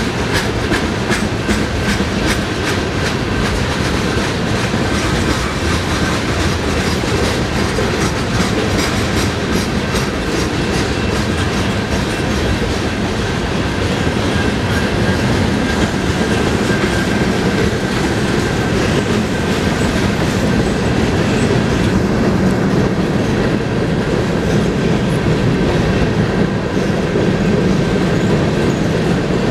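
A BNSF freight train's tank cars and covered hopper cars rolling past at speed: a steady rumble, with rapid clicking of wheels over rail joints that is heaviest in the first half. A faint, steady, high ringing tone sits over the noise.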